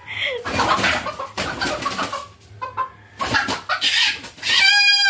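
A chicken squawking in distress and flapping as it is grabbed by hand, ending in one long, loud squawk near the end.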